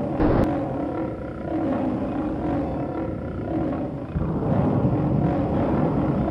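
Monster sound effects: layered growling and roaring, with a sharp hit just after the start. A deep, louder rumble comes in about four seconds in.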